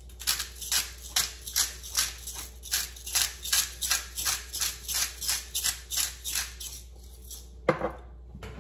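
Pink salt ground in a hand-twisted glass salt grinder: a steady gritty crunching, about four strokes a second, that stops about seven seconds in. A single knock follows near the end as the grinder is set down on the counter.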